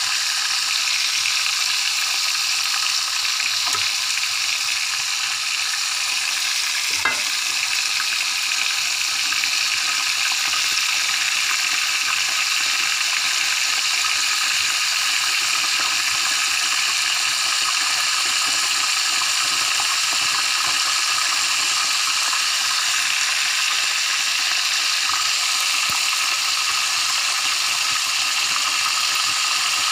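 Whole fish shallow-frying in hot oil in a nonstick pan: a steady sizzling, with a single light knock about seven seconds in.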